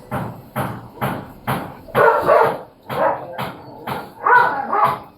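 Panasonic top-loading washing machine agitating in blanket mode: the pulsator swishes the water and blanket back and forth in regular strokes, about two a second. Two longer, louder surges come about two seconds in and near the end.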